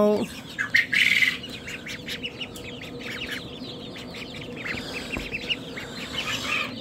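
Brood of young chicks peeping: a chorus of short, high peeps, busiest about a second in.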